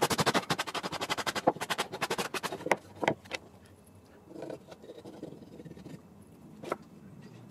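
Sandpaper rubbed by hand over a wooden block in rapid back-and-forth rasping strokes, several a second, which stop about three seconds in. Quieter handling rustle follows, with a single sharp tick near the end.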